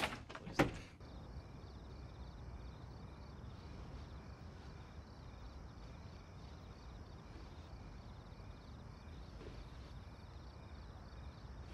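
Crickets chirping in an even, repeating rhythm over a faint hiss.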